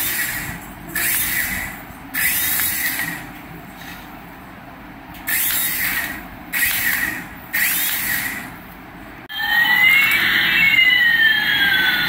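HX708 toy RC helicopter's small electric motor and rotor whirring in about six short bursts as the throttle is opened and closed. About nine seconds in, this gives way to the electronic sound effects of a battery-powered toy Airbus A380 plane: sweeping tones rising and falling across each other.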